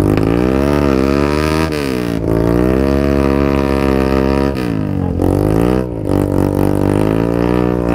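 A trail motorcycle engine revving up and down several times. It is held high for a couple of seconds in the middle and drops back between bursts of throttle, as the bike tries to pull through deep mud.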